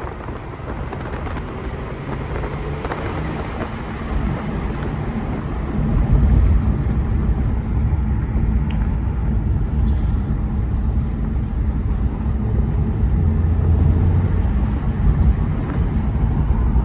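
A 2018 Mercedes-AMG E43's twin-turbo V6 and road noise heard from inside the cabin while driving, a steady low drone that grows louder about six seconds in.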